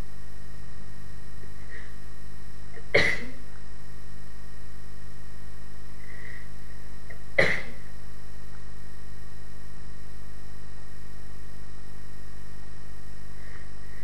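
A person sneezing twice during a sneezing fit, each sneeze a short sharp burst, about four seconds apart, over a steady background hum.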